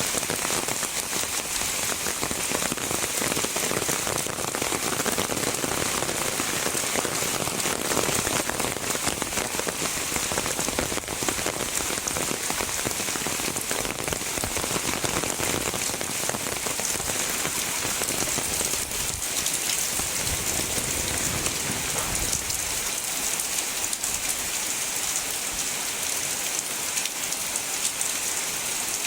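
Heavy rain falling steadily, a dense hiss of countless drops pattering on surfaces.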